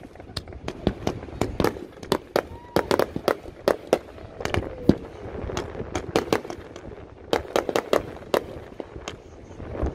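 Consumer fireworks going off: a dense, irregular string of sharp bangs and crackles, several a second, busiest near the end.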